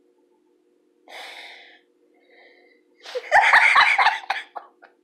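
A person's voice: a breathy gasp about a second in, then a loud burst of excited vocal sound lasting over a second, with a few low bumps in it.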